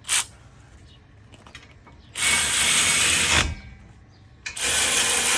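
A ratchet driving a 17 mm socket on the brake caliper bracket bolts: a short burst, then two runs of rapid ratcheting about a second each, near the middle and near the end, as the bolts are run in toward tight.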